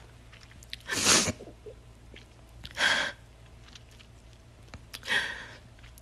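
A woman crying: three short, sharp sobbing breaths, about two seconds apart.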